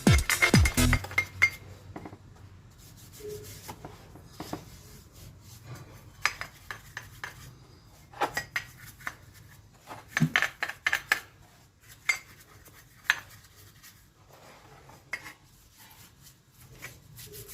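Scattered clinks and knocks of metal parts being handled, with light rubbing and scraping in between, from the Yamaha RX135's wheel hub parts being cleaned. The clinks come in small clusters, the loudest a little past the middle.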